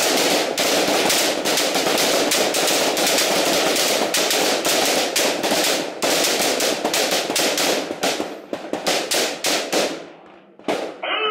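Many rifles firing at once along a firing line: a dense, overlapping stream of shots that thins to scattered single shots near the end.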